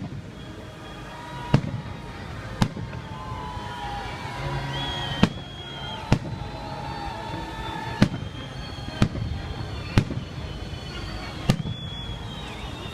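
Festive fireworks salute: about ten sharp bangs of shells bursting overhead, coming at uneven intervals of roughly one a second.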